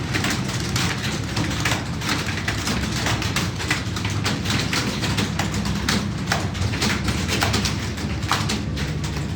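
Computer keyboard being typed on fast: a rapid, irregular run of key clicks over a steady low hum.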